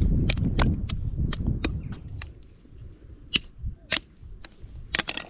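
Knife blade chopping and shaving the end of a thin green wooden stick: a string of sharp, irregularly spaced clicks, with a low rumble underneath for the first couple of seconds.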